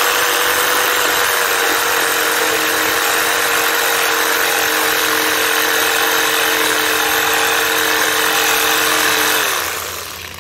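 Hyper Touch 6.5 amp corded reciprocating saw running at a steady pitch with its 6 TPI wood blade sawing through a birch log. About nine and a half seconds in, the trigger is released and the motor winds down, its pitch falling as it stops.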